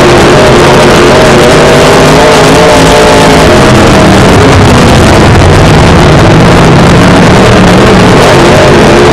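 Dirt-track modified race car's V8 engine, heard from inside the cockpit, running hard and loud enough to overload the microphone. The revs dip and then climb again a few seconds in, as the driver lifts off and gets back on the throttle through a turn.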